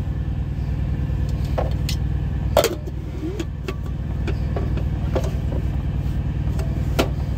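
Truck engine idling, a steady low rumble, with scattered clicks and knocks of dishes and jars being handled on the counter. The loudest knock comes about two and a half seconds in.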